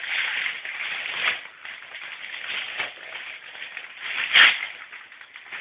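Wrapping paper crinkling and tearing as a present is unwrapped by hand, with a louder rip about four seconds in.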